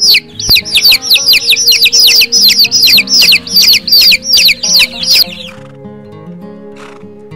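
Young chicks peeping loudly: a rapid run of high chirps, each falling in pitch, about four a second, that stops a little after five seconds in. Background music plays underneath throughout.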